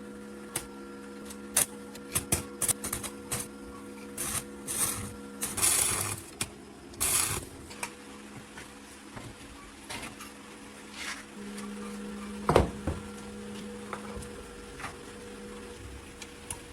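A steady low machine hum with scattered sharp clicks and knocks over it, a few short hissing bursts, and one louder knock about two-thirds of the way through.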